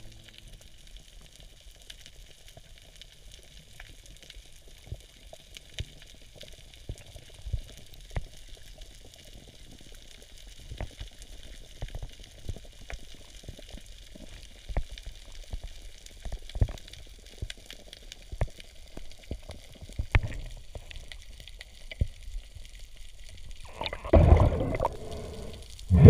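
Underwater sound heard through a camera housing: many scattered clicks and knocks over a faint crackling hiss, then a loud rushing burst of noise near the end.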